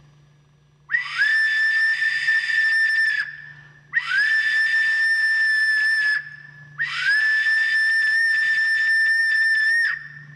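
Steam train whistle blowing three long blasts. Each blast slides up in pitch at its start and is then held on one steady note, and the last blast is the longest.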